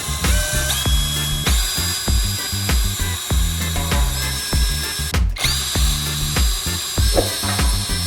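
Electric motor whining up to speed several times, its pitch rising quickly and then holding steady, over background music with a steady beat.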